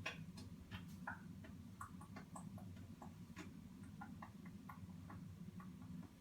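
Light, irregular clicks and taps, a few a second, from a small object being handled in a box, over a low steady hum.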